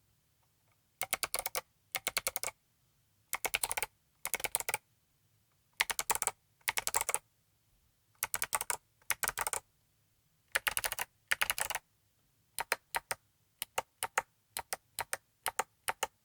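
Saturn 60 mechanical keyboard with clicky Midnight Jade (box jade) switches, a steel plate and MT3 PBT keycaps being typed on. Short paired bursts of rapid keystrokes come first, then a run of separate single key presses near the end.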